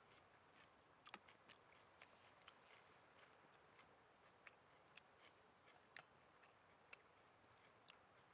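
Very faint, scattered sharp clicks and crackles, irregularly spaced about one a second, over a low steady hiss.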